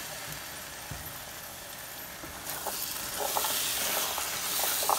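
Boiled chickpeas sizzling in hot oil and spice masala in a frying pan. About halfway through the sizzle grows louder as they are stirred with a spoon, with a few short scrapes and ticks against the pan.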